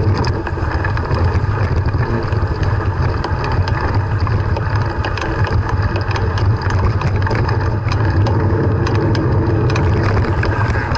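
Bicycle riding over bumpy grass, heard from a camera mounted on the bike: a steady low rumble of wind and rolling tyres, with frequent light rattles and clicks from the bike.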